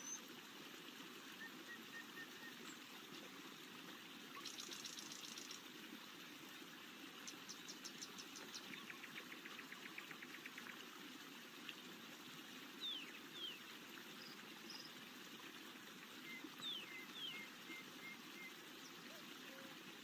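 Steady, faint rush of stream water over rocks, with birds calling over it: a buzz and rapid trills in the first half, then short falling whistles and a few chirps in the second half.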